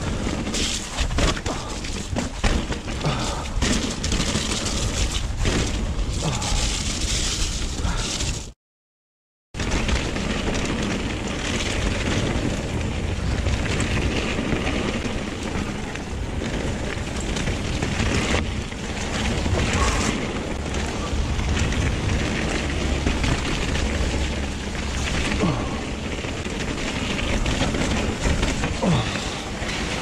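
Mountain bike riding down a wet, muddy trail, heard from a chest-mounted action camera: constant wind buffeting on the microphone mixed with the rattle and knocks of the bike and tyres over the rough ground. The sound cuts out completely for about a second near the middle.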